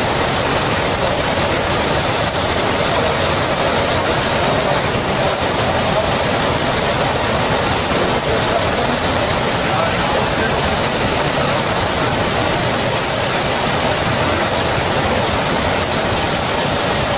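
KÜNDIG Uniq-S edge sander running with its dust extraction drawing air: a constant, even rushing noise.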